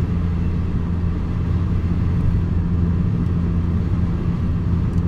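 Steady road and engine noise inside a moving car's cabin at cruising speed: a low rumble of tyres and engine with a constant low hum.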